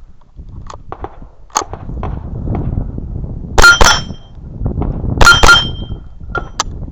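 .22 rimfire gunshots in two quick pairs about a second and a half apart, each with the ring of a hit steel plate target. Fainter single cracks come before and after.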